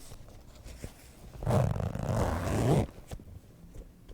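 A zipper on a bag or suitcase pulled in one long stroke of a little over a second, a rasp with a pitch that dips and then rises as the pull speed changes. A few faint clicks come before it.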